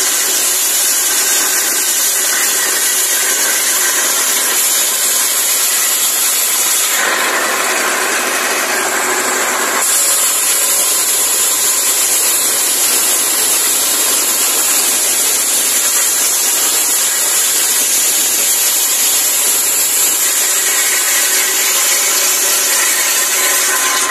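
Diesel-powered circular saw ripping a log lengthwise into planks: a loud, steady, high-pitched cutting noise over the running 24 hp diesel engine. For about three seconds, around a third of the way in, the sound shifts lower and harsher before returning to the high cutting noise.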